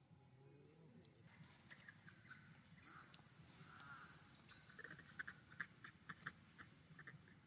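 Faint animal calls: a quick run of short high chirps between about five and seven seconds in, over a quiet background with a soft rustle a little before.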